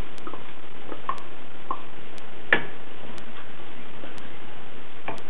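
Wooden spoon knocking and scraping against a bowl and the rim of an aluminium pressure cooker while chopped green onions are added to the soup and stirred. There are several light knocks, with one louder knock about halfway through.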